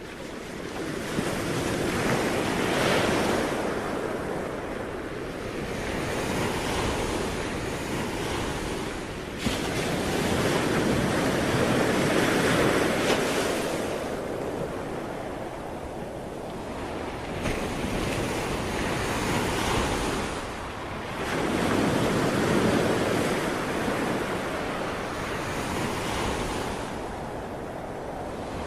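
Sea waves breaking and washing ashore, the surf swelling and easing again every few seconds.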